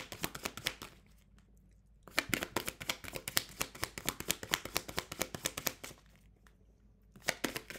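Tarot deck being shuffled by hand: a rapid run of papery card flicks and slaps that stops briefly about a second in and again near the end.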